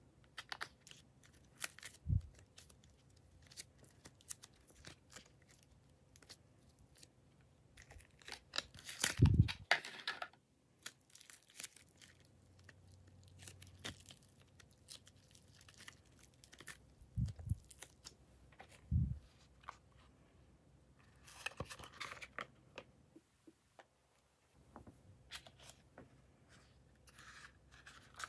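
Hands working soft clay slime: pulling it out of a plastic mould, squeezing it and pulling it apart. Scattered small clicks and crackles, with a few louder squishes, the loudest about nine seconds in.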